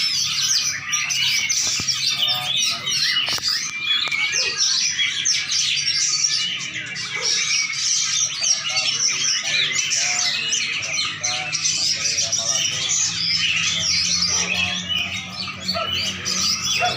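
Songbird chirping and twittering without pause, a dense run of quick high notes and trills, over a faint steady low hum.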